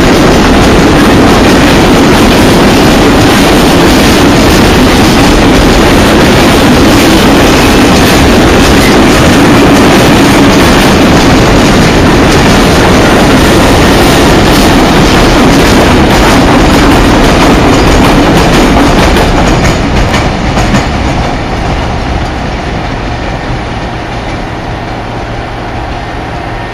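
Empty covered steel wagons of a freight train rolling past at speed, wheels clattering and clicking over the rail joints. The sound fades away about 20 seconds in as the last wagons pass and draw off.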